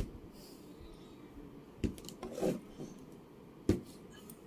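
Scattered clicks and light knocks of small objects being handled on a tabletop, with a sharp knock near the end, over a steady low room noise.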